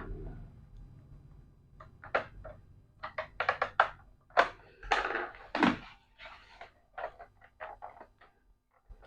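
Short plastic clicks and taps from handling and prying at a laptop's plastic case, in quick clusters from about two to six seconds in, then sparser.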